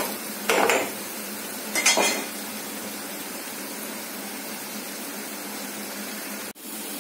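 Onion-ginger paste frying in oil in a nonstick pan with a steady sizzle. A steel spatula scrapes the pan twice in the first two seconds, and the sound cuts out briefly near the end.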